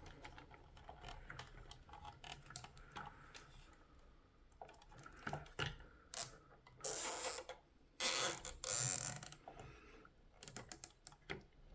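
Nylon cable tie being pulled tight around a hose on a barbed fitting: its ratchet head zips in two quick, loud rasps about seven and eight seconds in, among scattered small plastic clicks, with a fast run of ratchet clicks near the end.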